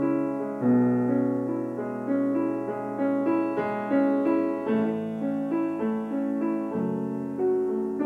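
Piano played in a slow, connected legato, a melody over held bass notes with new notes about twice a second, each tone carrying into the next. It demonstrates a 'moving', singing tone made with light arm weight rather than effort.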